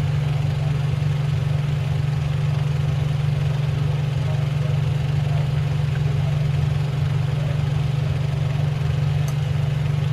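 Kitchen fan motor running with a steady low hum.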